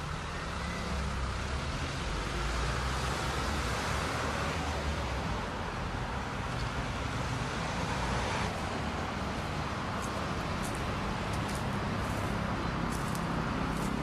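Road traffic passing, cars and a small delivery truck, a steady rumble of engines and tyres. After about eight and a half seconds the rumble drops away and a run of light, crisp footsteps on a garden path begins.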